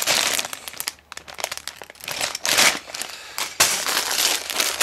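Clear plastic polybag of LEGO pieces crinkling as it is handled and set down, in several bursts.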